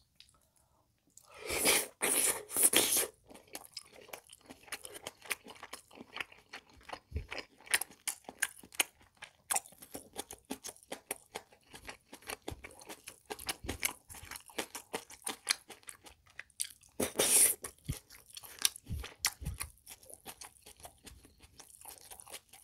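Close-miked chewing of a mouthful of pork kimchi jjigae, with kimchi, tofu and pork, crunching and wet mouth clicks. Loud bites start about a second and a half in, and there is another loud burst of mouth noise a little after halfway.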